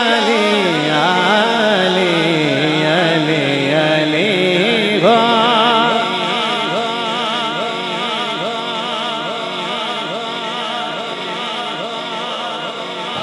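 A male vocalist sings a long, ornamented melismatic line of a manqabat, a devotional song in praise of Ali, the pitch wavering and sliding. A new phrase starts with a rising glide about five seconds in.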